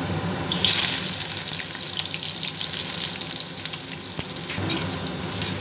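Sliced onions dropped into hot oil in a kadai, hitting the oil with a sudden loud sizzle about half a second in, then frying with a steady crackling sizzle.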